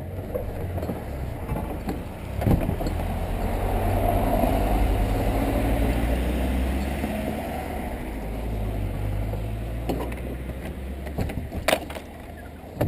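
A small car drives past, its engine and tyres swelling to a peak in the first half and then fading away. There is a sharp knock about two and a half seconds in and two more near the end.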